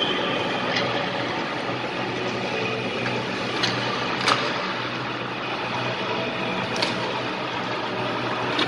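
Indoor ice hockey rink ambience: a steady mechanical hum and hiss, with four sharp clacks of hockey sticks and pucks on the ice, the loudest a little before halfway.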